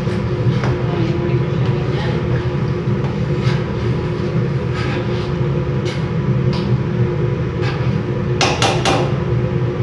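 A spoon stirring in a large stainless steel stockpot, knocking against the metal every second or so, with a quick run of three or four louder knocks near the end. A steady low hum runs underneath.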